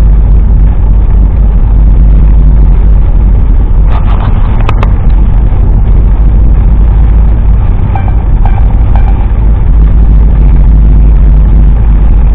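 Steady low rumble of a car driving on a wet road, heard from inside the cabin, with a couple of sharp clicks about four to five seconds in.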